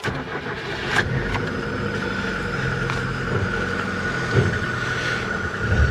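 VAZ 2111 car engine running at idle, a steady hum with a thin high whine over it, with a few light knocks about a second in, past the middle and near the end.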